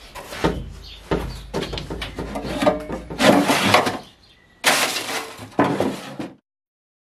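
Scrap metal offcuts clattering and scraping inside a metal box as it is slid out of a shelf and rummaged through by hand. There are several loud rattling bursts, and the sound cuts off suddenly about six seconds in.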